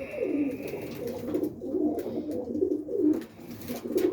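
Several roller pigeons cooing at once: overlapping, wavering low coos.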